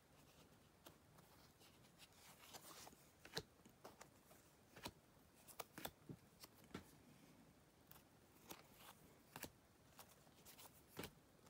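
Near silence broken by faint, scattered clicks and light ticks from baseball cards being handled.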